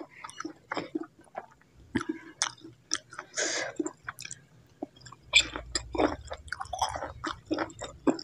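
Close-miked mouth sounds of someone eating chewy bakso aci (tapioca meatballs) and instant noodles in broth: wet chewing and biting with many short clicks. There is a brief slurp of noodles about three and a half seconds in.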